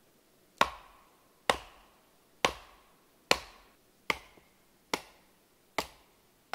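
A wooden baton striking the spine of a Skrama bush knife seven times, about once a second, driving the blade down through a piece of firewood to split it. The last three blows are a little quieter than the first four.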